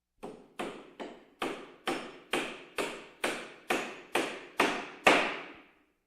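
Steady knocking on flat-pack furniture parts during assembly: twelve evenly spaced sharp knocks, a little over two a second, the last one the loudest.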